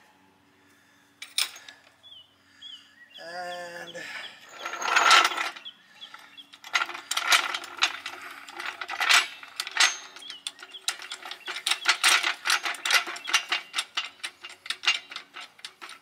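Hydraulic floor jack being pumped with its long handle: a steady run of short metallic clicks and creaks, a few a second, starting about seven seconds in. Just before, there is a brief louder rush of noise.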